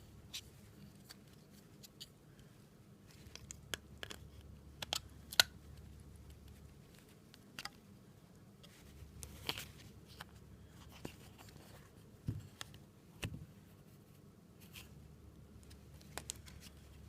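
Scattered faint clicks and taps in a small, quiet room, over a low hum that comes and goes.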